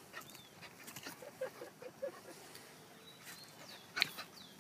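A quick run of about six short low animal calls in just over a second, followed about four seconds in by a single sharp knock.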